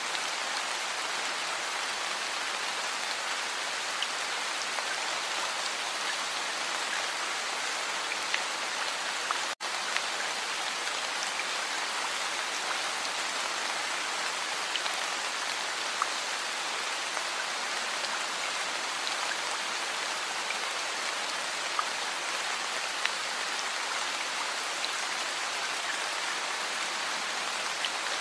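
Heavy rain falling steadily, with scattered louder drops ticking through the hiss. It cuts out for an instant about nine and a half seconds in.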